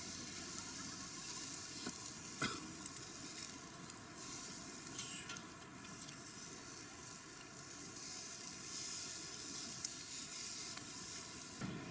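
Beef steaks sizzling on a wire-mesh grill over hot charcoal, a steady hiss, with a few sharp clicks about two seconds in as the meat is handled.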